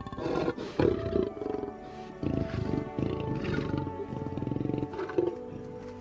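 Lion growling in several short, rough bouts over steady background music.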